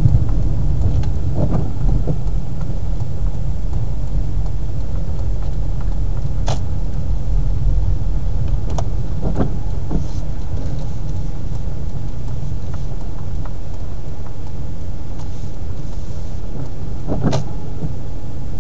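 Car driving, heard from inside the cabin: a steady low rumble of engine and road noise, with a few scattered clicks and knocks.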